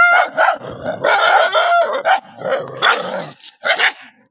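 Dogs barking angrily in a rapid run of barks, a couple of them drawn out into a longer, pitched yelp.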